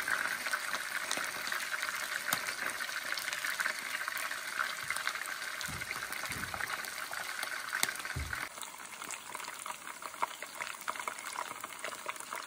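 Hot oil sizzling and crackling steadily around shredded-yam and shrimp fritters shallow-frying in an electric skillet, easing slightly about two thirds of the way in. A few dull low bumps come near the middle.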